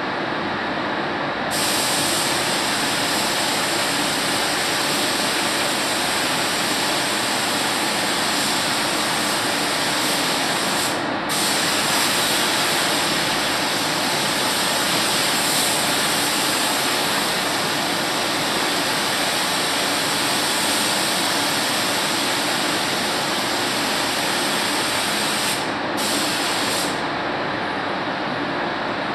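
Gravity-feed paint spray gun hissing as compressed air atomises paint in long passes. It starts a second or two in, breaks off briefly twice (about eleven seconds in and near the end), and stops shortly before the end, over a steady low rumble.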